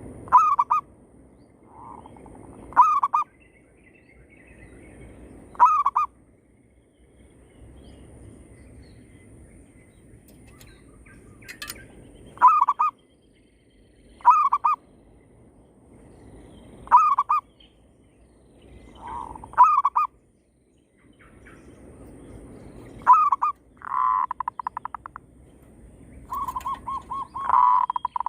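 Zebra doves (perkutut) cooing: a caged decoy and wild birds calling back and forth. Short coos repeat every two to three seconds, and near the end come two longer rapid rolling coo phrases, over a low steady background noise.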